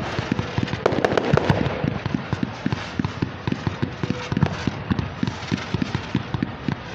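Fireworks display: a rapid, uneven string of bangs and crackles, several a second, as many shells and crackling stars go off in quick succession.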